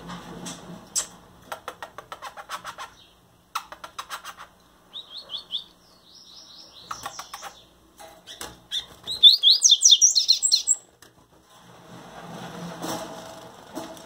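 Caged double-collared seedeaters (coleiros) calling: short chirps about five seconds in, then a fast song phrase of quick rising notes from about nine seconds in, the loudest sound. Earlier there are runs of short clicks and flutters.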